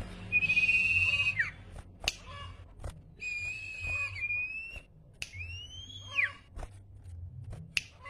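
Caged sirpu songbird singing in clear, loud whistles. There are three long notes: one held level and then slurring down, one held and rising slightly, and one that rises and falls. Sharp clicks come between the notes.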